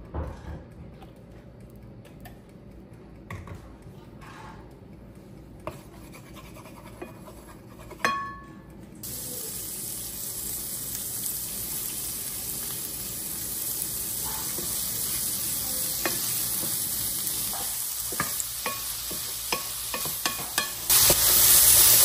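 Scattered light clicks and a short metallic clink about eight seconds in, then seasoned shrimp hitting hot oil in a skillet with peppers and onions: a steady sizzle starts suddenly about nine seconds in and grows louder near the end, with clicks of a spatula stirring.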